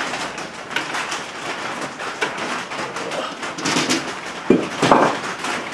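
Scattered light knocks and scraping as a heavy antique engine hanging from an engine hoist is handled and set on a cart, with two sharper knocks about four and a half and five seconds in.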